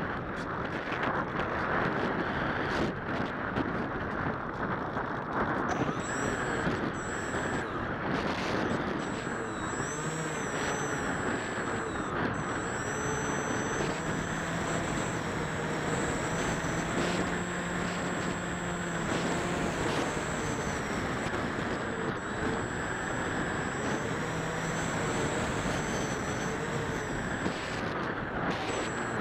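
Wind rushing over the microphone of a camera mounted on an AXN RC plane in turbulent air. Under it is the whine of the plane's electric motor and propeller. A thin high whine comes in about six seconds in, and several motor tones rise and fall in pitch as the throttle changes through the middle of the flight.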